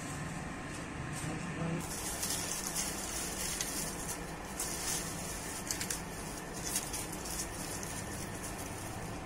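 Dry, papery onion skins crackling and rustling as hands peel onions. It comes as an irregular run of crisp crackles that starts about two seconds in.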